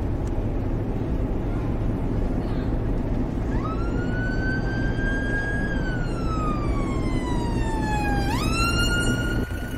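Wailing siren over a steady city traffic rumble. The siren comes in about three and a half seconds in, rising and holding, then slowly falls and sweeps sharply back up near the end.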